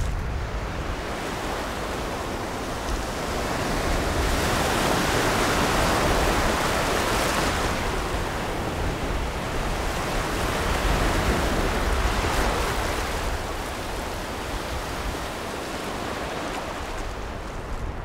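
Small surf breaking and washing up over a shelly beach, a steady rush of water that swells twice and eases off again.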